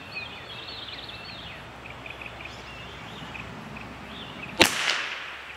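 A single shot from a CZ 457 MTR .22LR bolt-action rifle, a sharp crack about four and a half seconds in with a brief fading tail. Small birds chirp before it.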